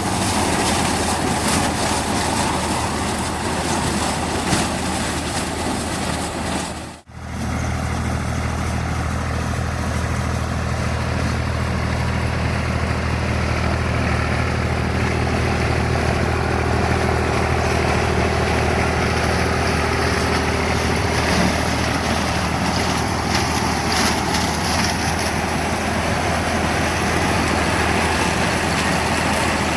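Farm tractor's diesel engine running steadily under work. The sound cuts out almost completely for a moment about seven seconds in, then returns as a steadier, deeper engine hum.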